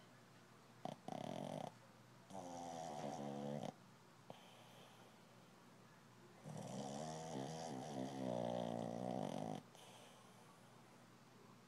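Shih tzu snoring in its sleep: three snores with quiet pauses between them, a short one, a longer one, and a last one of about three seconds.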